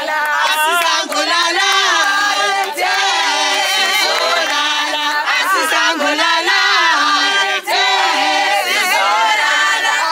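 A crowd of people singing together unaccompanied, many voices at once with their melody lines sliding up and down, and a few short sharp sounds among them.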